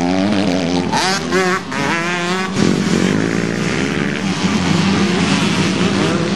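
Several motocross bikes racing past, their engines revving up and down as the riders work the throttle, with a sharp rise in pitch about a second in.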